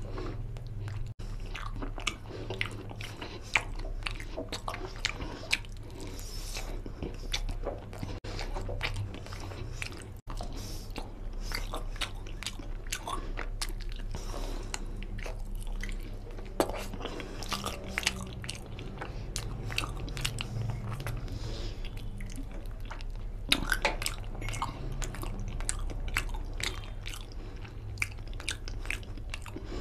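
A person chewing and biting mutton curry and rice eaten by hand, with many small mouth clicks and smacks throughout, over a steady low hum.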